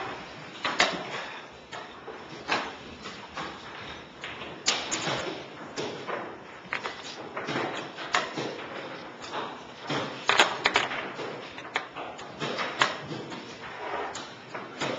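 Irregular wooden knocks and taps echoing in a large hall: chess pieces being set down on a board and the chess clock being pressed.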